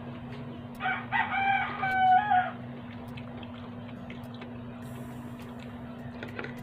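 A rooster crowing once, a pitched call of several stepped parts that starts about a second in and lasts under two seconds, over a steady low hum.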